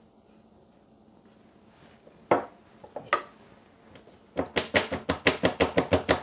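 Two sharp clicks as a metal palette knife is laid in a small bowl, then a plastic chocolate mould filled with tempered chocolate is rapped quickly on a wooden worktop, about six knocks a second, to bring air bubbles up and settle the chocolate evenly.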